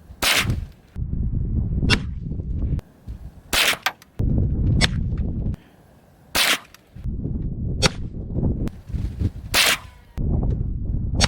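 Gunshots fired one at a time, about eight of them a second or two apart, each a sharp crack. A low rumble fills the gaps between shots.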